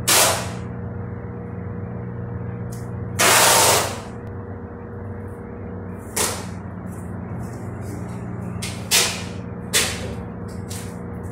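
A cricket bat and ball being handled and turned over, giving a few brief rubs and knocks, the longest a hissy rush about three seconds in and shorter ones later, over a steady background hum.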